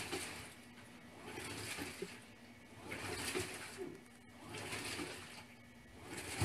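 Washing machine agitating hard: water churns and sloshes in surges about every one and a half seconds over a faint steady motor hum.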